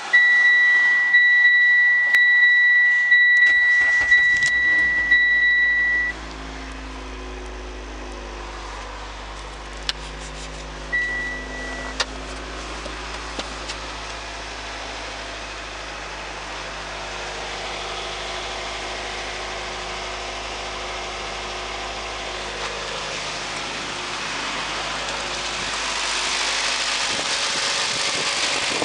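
A car's high, steady warning tone sounds as the Mitsubishi Lancer's 2.0-litre 4B11 four-cylinder engine cranks and starts about three and a half seconds in. The engine then idles steadily. The warning tone stops about six seconds in and sounds briefly again near twelve seconds, and the idle grows louder near the end.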